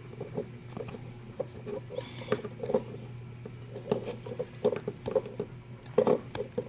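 Irregular scratching and scraping with small clicks, a few a second, as a heat-sink-like layer is picked off a chip on a security camera's circuit board.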